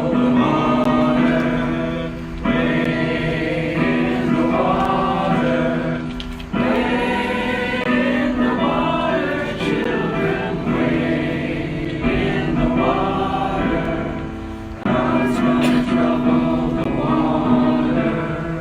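A group of people singing together in long, held phrases with short breaks between them.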